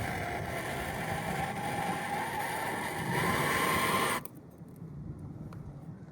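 Gas torch flame hissing with a faint whistle as it heats a solder-filled battery cable end, melting the solder into the wire. It gets a little louder about three seconds in, then cuts off suddenly just after four seconds when the torch is shut off.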